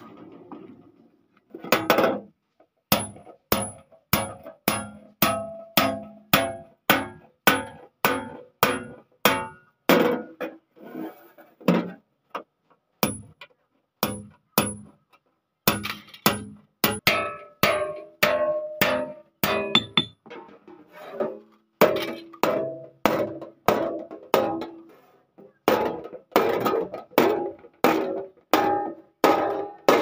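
Hammer striking a cold chisel to cut through a steel sheet: sharp metallic blows about two a second, each followed by a short ring from the plate. The blows begin about two seconds in, with a few brief pauses.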